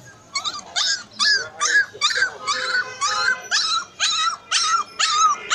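A young puppy, about 25 days old, yelping over and over in short high-pitched cries, about two a second, starting a little under half a second in.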